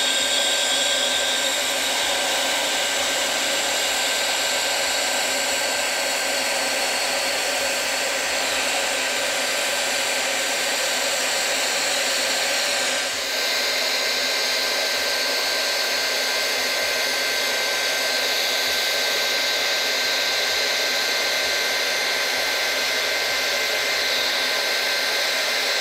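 Hot-air plastic welding gun blowing steadily as HDPE welding rod is fed through its tip along a tank seam: an even rush of air with a steady high whine from the blower.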